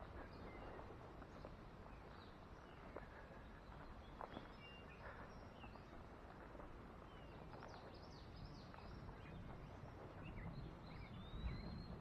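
Faint outdoor ambience: scattered short bird chirps and calls, with one longer whistled call near the end, over a low steady rumble.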